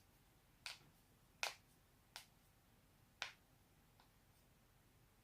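Neck joints cracking: five sharp pops spread over about three seconds, the second the loudest and the last faint.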